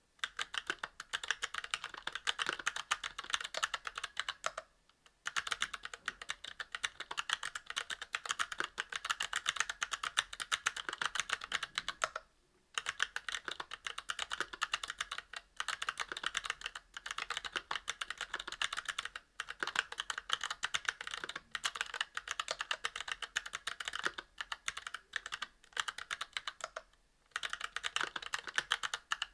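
Fast continuous typing on an aluminium-cased mechanical keyboard with Kailh Box Crystal Royal tactile switches, a brass plate and GMK keycaps: a dense clatter of key clicks, broken by brief pauses three times.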